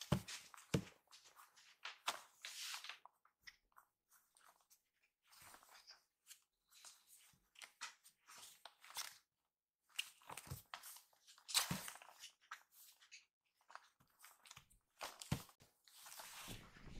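Two kittens scuffling and wrestling in a fabric pop-up play tent: irregular rustling and crinkling of the tent fabric, with a few soft knocks from paws and bodies against the tent and floor mats.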